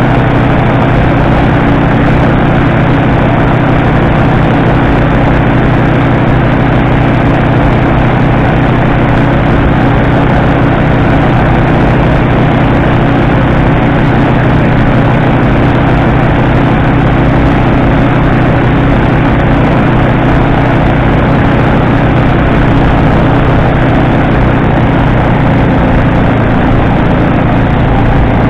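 Fanagoria microlight trike's rear pusher engine and propeller running loud and steady in flight, an even drone with no change in power.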